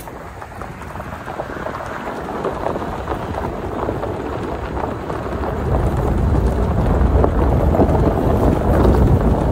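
Mitsubishi Triton pickup driving on a gravel road: tyres crunching over loose stones with road and wind noise, growing steadily louder as it gathers speed, with a heavy low rumble coming in about halfway through.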